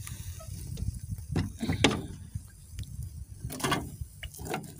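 Irregular scraping and clattering knocks of a wooden skewer against a wire grill rack as a squid is turned over charcoal, over a low steady rumble.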